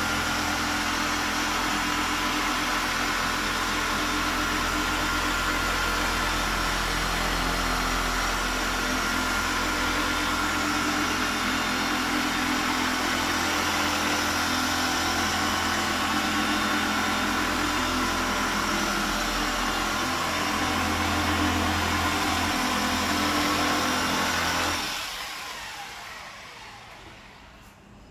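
Electric machine polisher with a green foam pad running steadily on car paint, a constant motor whine over a low hum. About 25 seconds in it is switched off and winds down.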